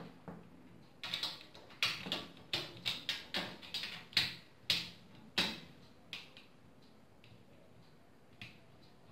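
A Cooler Master SickleFlow 120 case fan's plastic frame clicking and knocking against the metal front of a PC case as it is fitted into place. There is a quick run of about a dozen sharp clicks, then one more click near the end.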